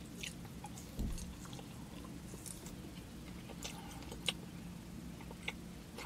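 A person chewing a strip of dry beef jerky: faint scattered mouth clicks, with a soft thump about a second in.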